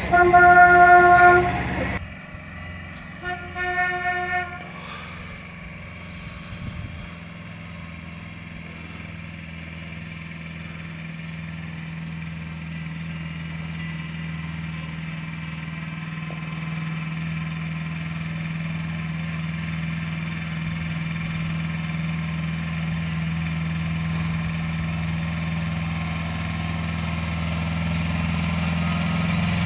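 Horn of a small tourist road train sounding twice: a loud toot of about two seconds, then a shorter one. Then the steady hum of a vehicle engine, slowly growing louder as it approaches.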